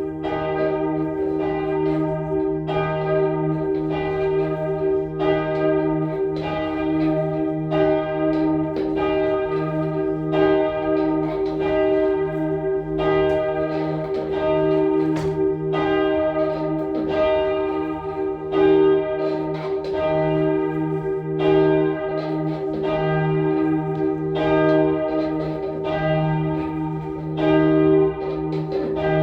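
Church tenor bell, the heaviest and lowest bell of the ring, struck over and over in quick succession. Each strike rings on into the next, so its deep hum never dies away.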